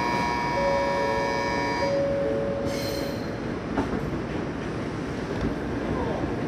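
A platform departure bell rings and stops about two seconds in, overlapped by a lower two-note chime; then a short hiss and a thud near four seconds in as the N700A Shinkansen's doors slide shut, over the steady hum of the standing train.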